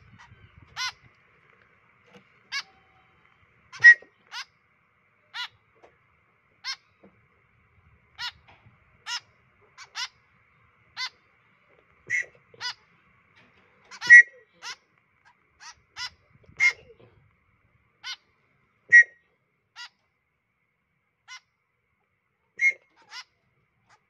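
Fledgling white-breasted woodswallows (kekep babi) begging, giving short calls about once a second at an irregular pace, the loudest about four seconds and fourteen seconds in. The open-beaked begging calls come while the chicks are being hand-fed.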